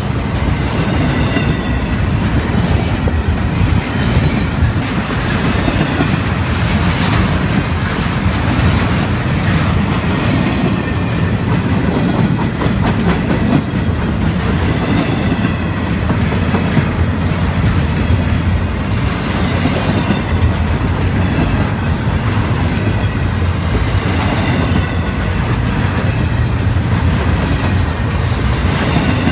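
Intermodal freight train cars rolling past close by: a steady, loud noise of steel wheels running on the rails.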